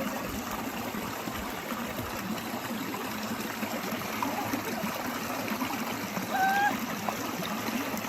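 Water of a stream running steadily over rocks. A short high call briefly sounds over it about six and a half seconds in.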